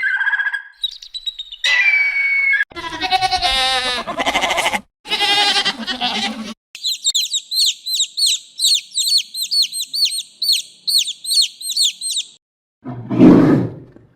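A string of different animal calls, one after another: a few short calls, two longer wavering calls, then a bird chirping rapidly over and over for about five seconds, and a loud, rough call near the end.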